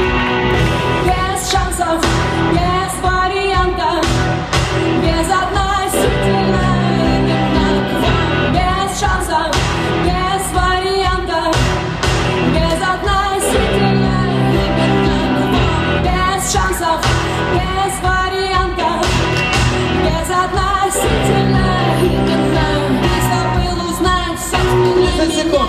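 Pop song with a singing voice over a steady beat, playing loudly.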